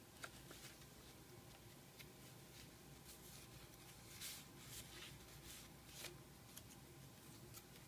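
Near silence, broken by faint, brief rustles and soft taps of heavy paper pages and tags being handled and turned in a thick handmade journal.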